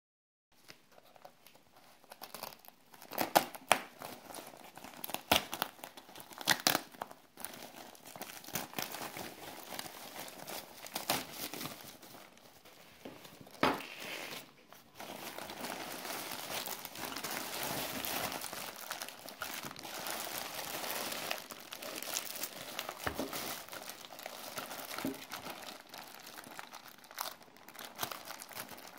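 Plastic packaging crinkling and rustling as a white plastic mailer bag is handled and torn open, then a clear zip-lock bag is handled. Sharp loud crackles come in the first several seconds, and a steadier dense rustle runs from about halfway.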